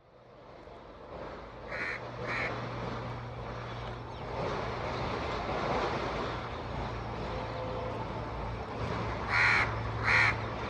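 Crows cawing, two caws about two seconds in and two louder ones near the end, over the steady drone of an approaching diesel locomotive.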